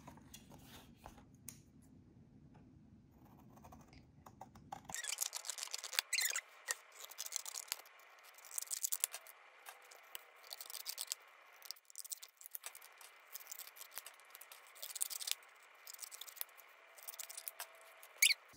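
Scissors cutting thick cardstock: a run of irregular crisp snips and rasping strokes, starting about five seconds in after a quiet stretch.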